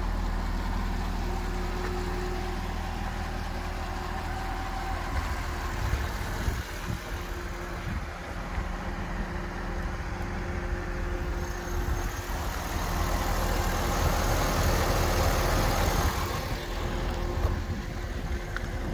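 Chevrolet Corvette's 400 hp LS2 V8 idling steadily, with a stretch of rushing noise over it in the later middle part.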